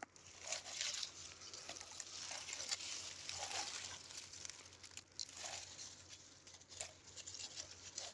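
Faint, irregular rustling and crackling of dry leaf litter as armadillos shuffle through it.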